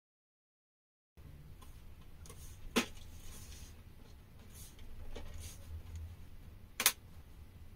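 Plastic back cover of an HP Pavilion all-in-one computer being handled and fitted, with two sharp plastic clicks about four seconds apart over faint handling noise. It begins with about a second of dead silence.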